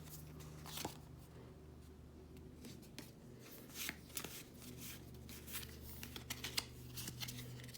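Pokémon trading cards being handled and slid against one another, a scatter of soft, light clicks and flicks.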